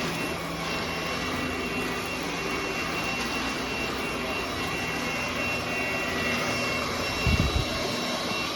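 NADALY cordless stick vacuum running: a steady rush of air with a high motor whine. A brief low thump about seven seconds in.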